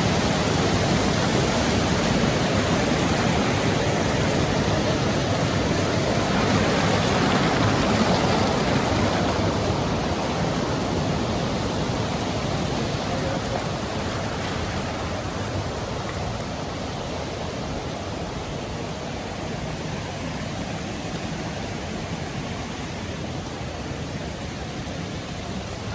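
Rushing water of a river cascade, a steady noise that eases a little after about nine seconds.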